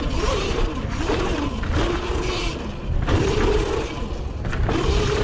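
CAKE electric motorbike's motor whining, its pitch rising and falling over and over with the throttle, over wind noise on the helmet camera and the tyres on a loose dirt and gravel trail.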